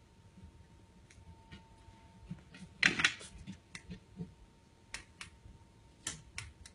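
A series of sharp clicks and taps: a quick, loud cluster about three seconds in, then a few single clicks near the end.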